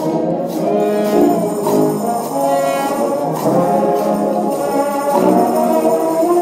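Trombone shout band playing a gospel tune: several trombones holding chords in harmony, with a tambourine shaken on the beat.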